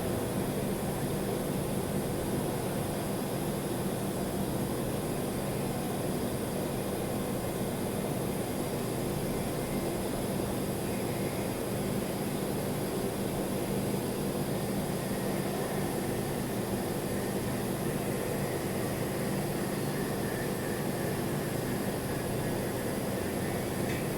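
Welding on 4 inch stainless steel: a steady low electric hum with a hiss over it, unbroken and at an even level.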